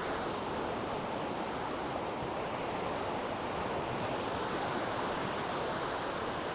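Steady rush of the Spokane River's white-water rapids below the bridge, an even, unbroken noise of fast-moving water.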